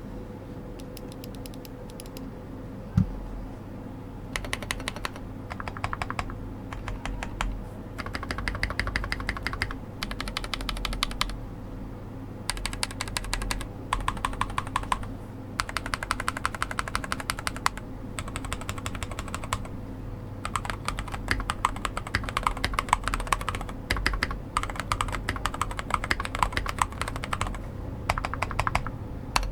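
Typing on a Glorious GMMK Pro mechanical keyboard with Glorious Panda tactile switches on a POM plate: runs of fast keystroke clacks with short pauses between. There is a single louder knock about three seconds in.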